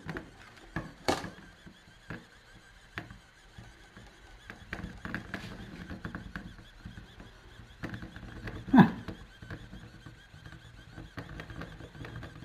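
Handheld 3D pen extruding filament, its small feed motor running with a faint steady hum, and scattered light clicks of the nozzle against the plastic part. Two brief louder clicks stand out, one about a second in and a sharper one near nine seconds.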